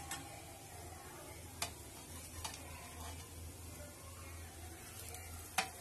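Chicken shami kebabs sizzling faintly in oil on a flat pan, with a few sharp clicks of a metal spatula against the pan as they are lifted out, the loudest near the end.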